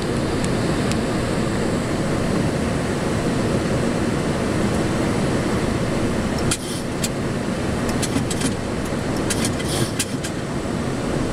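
Steady engine and airflow noise of an aircraft in the climb, heard inside the cockpit, with a few brief clicks partway through.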